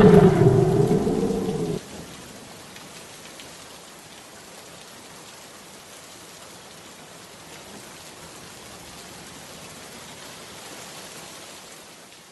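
A loud, wavering pitched drone cuts off abruptly about two seconds in. It leaves a steady rain-like hiss that fades out near the end.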